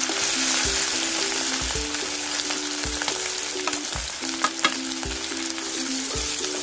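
Grated boiled potato sizzling in hot ghee in an aluminium kadhai as it is tipped in and then stirred with a wooden spatula. There are two sharp clicks of utensils against the pan about four and a half seconds in, all over background music with a steady beat.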